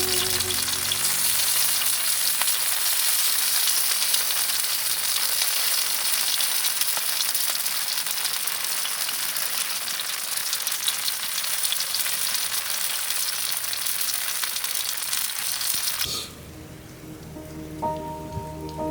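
Meat sizzling on a hot grill: a steady fine crackling hiss that cuts off abruptly about three-quarters of the way through. After a short quieter gap, background music comes in near the end.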